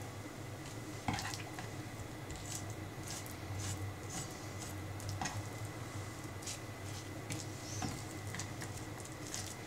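Kitchen knife cutting raw chicken thigh on a wooden cutting board: soft wet squishing of the meat, with scattered knocks of the blade on the board, the sharpest about a second in. A steady low hum runs underneath.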